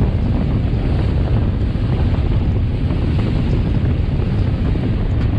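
Wind blowing hard on the microphone aboard a fishing boat under way, over the steady rush of its wake.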